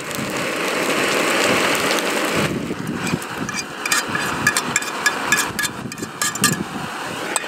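Pulled pork with garlic and onion frying in a pan: a steady sizzle, with a run of small clicks and scrapes from about two and a half seconds in as the meat is worked in the pan.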